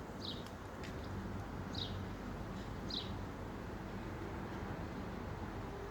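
A bird's short high chirps, each falling slightly in pitch, three times about a second or so apart, over a steady low outdoor rumble.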